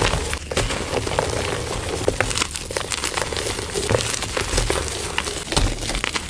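Concrete mix being stirred: a dense, irregular run of gritty crackles and scrapes.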